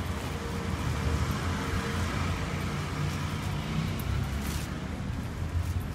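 Wind buffeting a phone's microphone while riding a bicycle: a steady, rough low rumble.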